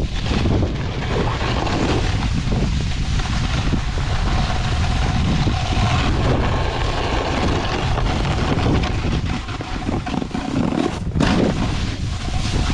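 Wind buffeting the camera microphone at speed, over the steady hiss of a snowboard sliding and carving on snow.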